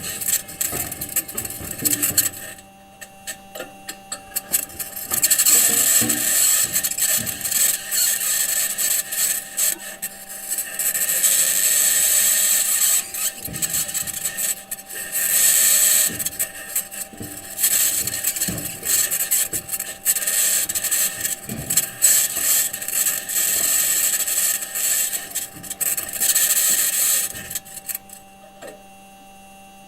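NASA Perseverance rover's wheels driving over Martian rock, recorded by its onboard microphone: a harsh, grating scrape with repeated knocks and clanks, over a steady electrical hum. The scraping stops about 28 seconds in, leaving only the faint hum.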